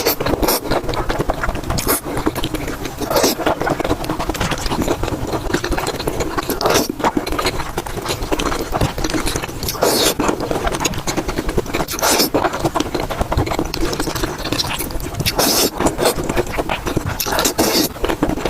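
Close-miked eating sounds: continuous wet chewing and mouth noises, with sharp crunches or clicks every second or two.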